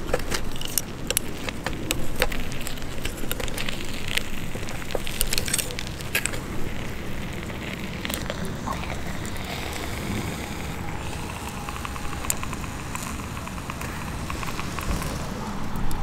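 Wood campfire crackling, with sharp pops that come thick and fast for the first few seconds and then thin out over a low steady rumble.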